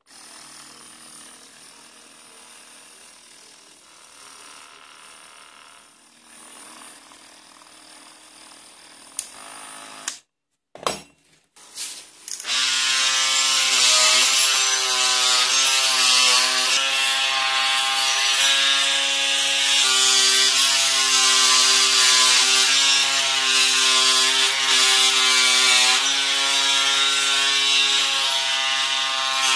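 A few sharp clicks, then about twelve seconds in a cordless oscillating multi-tool starts up with a loud, steady buzz. Its pitch wavers as the scraper blade is worked against a plastered wall.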